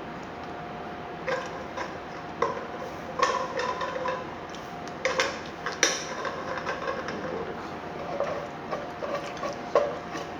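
Dishes and cutlery clinking and scraping as a meal is eaten, with irregular sharp knocks that ring briefly.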